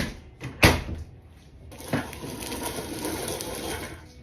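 Two sharp knocks about half a second apart, then a steady rushing noise lasting about two seconds.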